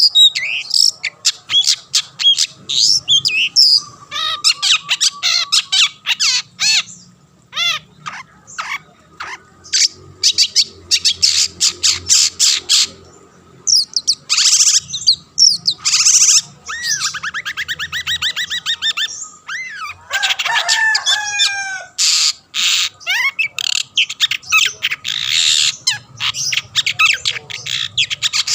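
Long-tailed shrike singing without pause: a fast, varied stream of harsh chattering notes and clicks mixed with rapid trills and falling whistled slurs, a full song of the kind used to provoke rival shrikes into singing.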